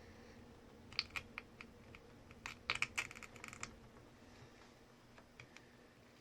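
Small repair tool clicking and scraping against a Samsung Galaxy S10e's rear camera surround while the old cracked lens glass and adhesive are picked off. There is a quick cluster of light clicks about a second in and a longer run of them a little past the middle, over a faint steady hum.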